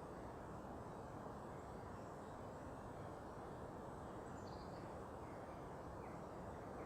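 Steady, low outdoor background hiss with a few faint, high bird chirps, a couple about four seconds in and more near the end.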